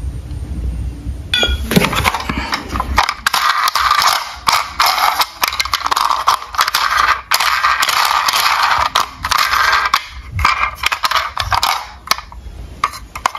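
Toy cars being handled in a cardboard box: dense rattling, clattering and scraping of plastic and die-cast bodies against each other and the cardboard. It starts about a second and a half in and eases off near the end.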